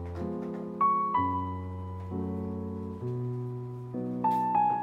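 Background piano music, soft chords changing about once a second, with a brief click about four seconds in.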